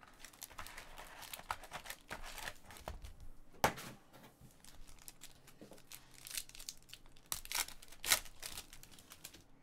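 Foil trading-card packs (Panini Totally Certified) crinkling as they are handled, and a pack's foil wrapper being torn open near the end. The sound is a run of irregular crackles, with a sharp one about a third of the way in and another near the end.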